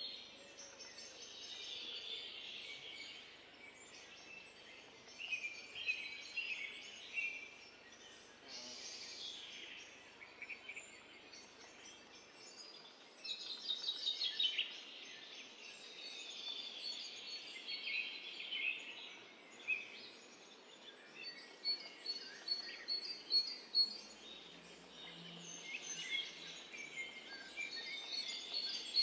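Songbirds singing and chirping over a soft, steady outdoor hiss. Near the end come runs of quick, evenly repeated high notes.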